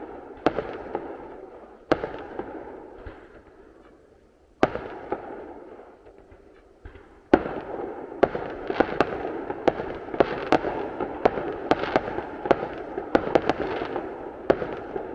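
Fireworks going off: a few single bangs, each trailing off in an echoing rumble, then from about seven seconds in a rapid run of many bangs, several a second.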